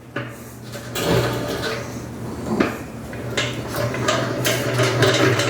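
Hand-cranked two-frame honey extractor being spun up: a few knocks as the crank starts turning, then a steady low hum with metal rattling that grows louder as the drum picks up speed.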